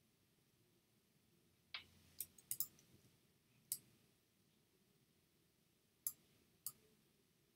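Computer mouse clicking: about seven short, sharp clicks, several in quick succession about two seconds in and a couple more single clicks later, over near-silent room tone.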